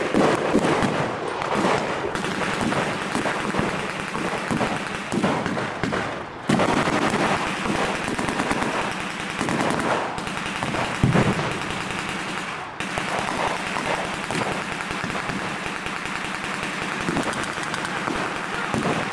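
Sustained blank gunfire from a mock battle: rapid machine-gun bursts mixed with rifle shots, with sharper, louder reports about six and eleven seconds in.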